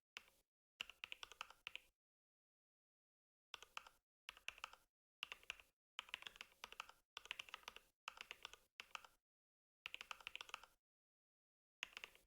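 Mechanical keyboard being typed on in quick bursts of keystrokes, with a deep 'thocc' sound, each burst a rapid run of clicks separated by dead-silent gaps.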